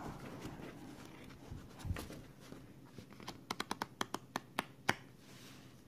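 Scratch-off lottery tickets in a stack flicked one by one under a thumb: a couple of scattered paper ticks, then a quick run of about eight crisp ticks in the second half.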